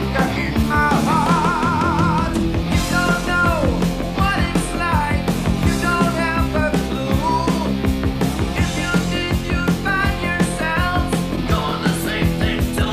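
Background rock music with a steady drum beat and a wavering melody line.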